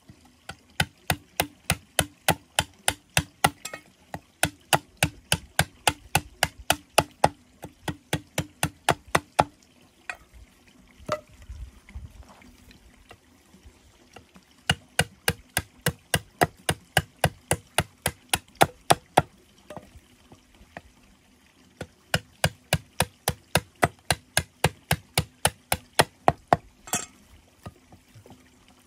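A blade chopping into bamboo with rapid, even strokes, about three a second, in long runs broken by looser pauses about ten and twenty seconds in.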